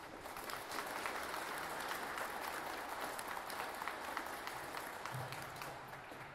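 Audience applauding: many hands clapping together, easing off slightly near the end.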